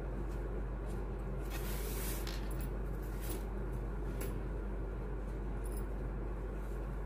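Soft rustling and crinkling from hands wrapping a bangle, in a few short bursts about one and a half to four seconds in, over a steady low hum.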